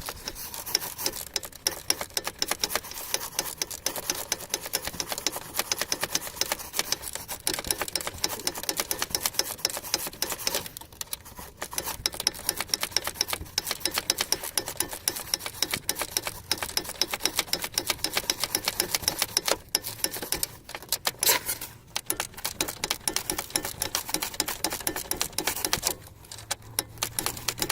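Ratchet wrench clicking rapidly as it runs in the bolt of an anti-roll bar bushing clamp, with short breaks about eleven seconds in and near the end. The bolt turns freely, screwing in very easily.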